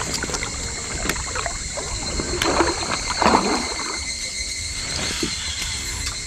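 Water sloshing and splashing against a float tube, loudest for about a second midway, over a steady high drone of summer insects.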